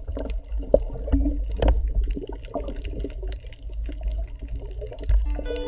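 Water gurgling and sloshing over a low rumble, with scattered irregular clicks. Background music with sustained tones comes in near the end.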